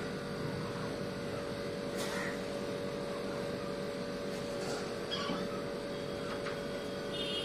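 Steady electrical hum, with a faint, brief, high whine from a Labrador puppy near the end.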